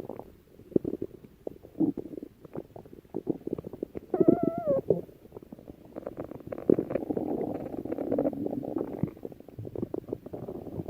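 A person's stomach growling: irregular gurgles and small clicks, with a short wavering pitched gurgle about four seconds in and a longer, denser rumble a little past the middle.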